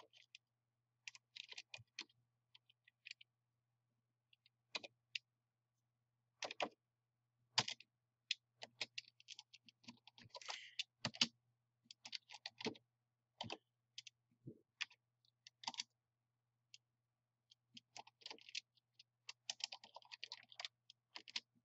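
Typing on a computer keyboard: faint, irregular key clicks in short runs, over a faint steady low hum.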